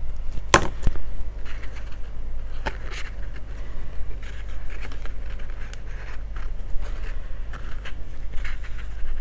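Hands handling small cardstock pieces and pressing them onto a folded card: light paper rustles and scrapes with a few sharp taps, the loudest about half a second in, over a steady low hum.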